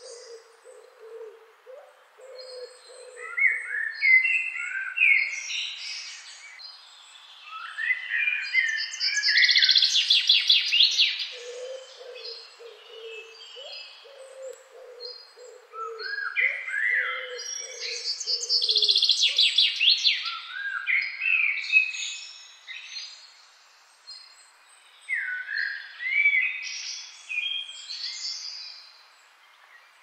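Forest birds singing: several songbirds give high whistled phrases and fast trills, loudest twice, about a third and two-thirds of the way through. Under them, a bird's series of short, low hooting notes comes in near the start and again through the middle.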